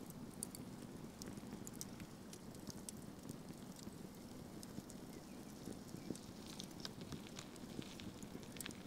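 Faint scattered small clicks and cracks of ostrich eggshell as fingers pry pieces off the broken top of the egg, over a steady low background noise.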